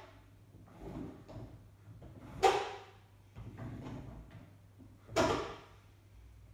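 Quad roller skate wheels rolling and scraping briefly over wooden floorboards as the skater swivels her toes out and pulls them back in with her weight on her heels. Two louder half-second rolling scrapes, about three seconds apart, with softer wheel rubbing between.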